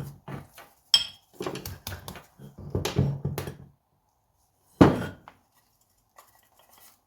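Small metal clicks and taps of a screwdriver and loose parts against a two-stroke moped engine's crankcase during strip-down, then one heavy thunk just under five seconds in, and a few faint taps near the end.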